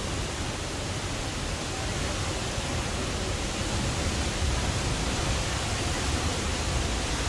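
Steady rush of falling water from La Fortuna waterfall, an even roar with a deep low rumble, growing slightly louder near the end.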